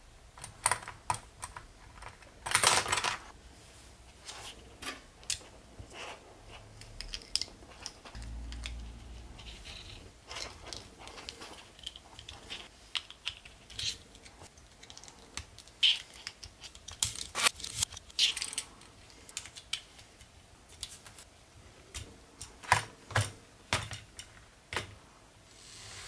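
LEGO Technic pieces clicking, snapping and tapping as they are fitted together by hand: an irregular run of small, sharp plastic clicks.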